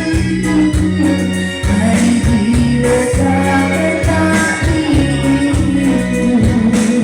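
Music with a strong bass line and a steady beat.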